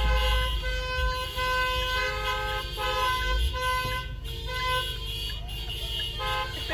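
Car horns honking in the celebratory fashion of a drive-by birthday parade: several horns overlap in short and longer toots that start and stop every second or so, over a low rumble that eases off about three and a half seconds in.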